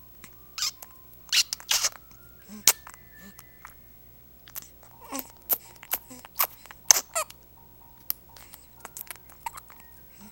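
Repeated hiccups: a dozen or so short, sharp hics at uneven intervals.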